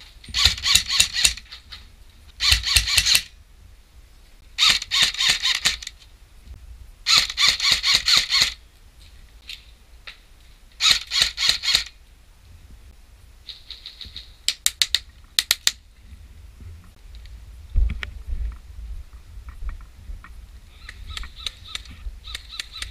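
Airsoft rifle firing five rapid full-auto bursts of about a second each, then a few single shots; fainter bursts come in near the end.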